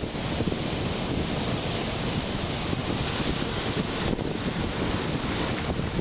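Pacific Ocean surf breaking and washing over rocks, a continuous rush of foaming water. A ragged low rumble of wind buffets the microphone.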